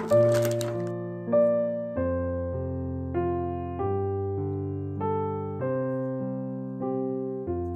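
Background music: a steady keyboard melody with a new note about every two-thirds of a second. Plastic bag wrapping crinkles briefly at the start and stops just under a second in.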